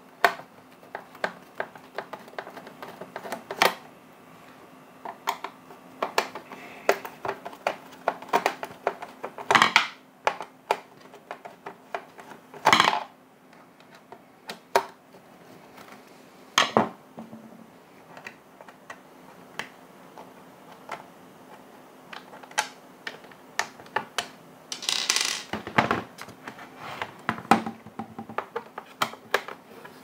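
Small scattered clicks and knocks of a hand Torx screwdriver working screws out of a plastic blower housing, with a few louder clacks of plastic and small metal parts handled and set down on a wooden table.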